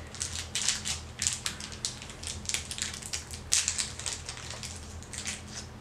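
Crinkling of small plastic candy wrappers being torn open by hand, a run of irregular sharp crackles.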